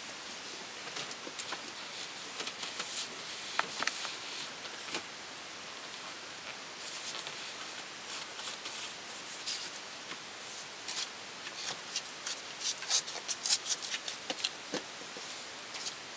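Scattered metallic clicks and rattles of a hand wrench working a car seat's mounting bolt loose, thickening into a quick run of clicks toward the end, over a steady hiss.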